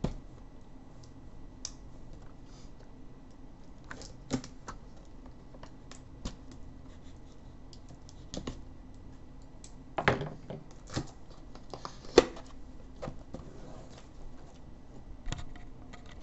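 Hands opening a cardboard retail box: scattered taps, scrapes and clicks of cardboard, with a few sharper knocks, the loudest about twelve seconds in.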